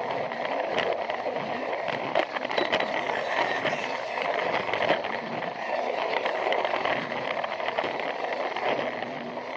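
Plarail toy train running along plastic track: its small battery motor and gearbox whirring steadily, with a few sharp clicks and rattles along the way.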